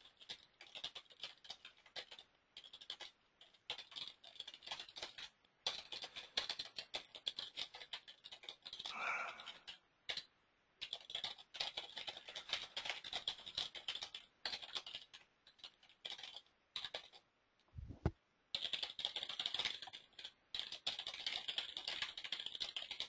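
Typing on a computer keyboard: fast, irregular key clicks with short pauses between bursts. There is one low thump about three quarters of the way through.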